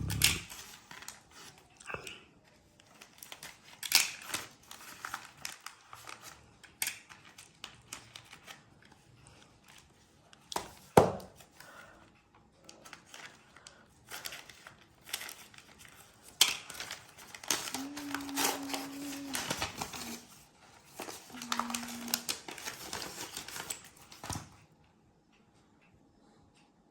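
Packaging being opened: crinkling and tearing of wrapping with scattered sharp clicks and snaps, busiest in a long crinkly stretch in the second half, then stopping.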